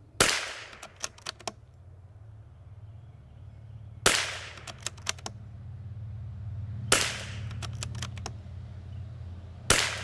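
Four .22 Long Rifle rifle shots, about three seconds apart, each followed by a few quick clicks as the bolt is cycled. A steady low hum runs underneath.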